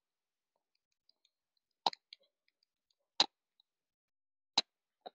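Three single footsteps on a leaf-strewn woodland path, each a short sharp crunch, a little over a second apart, with near silence between them.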